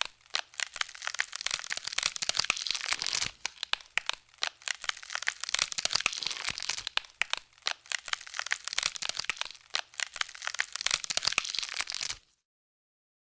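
Dense, irregular crackling and crunching made of many sharp clicks, cutting off suddenly near the end.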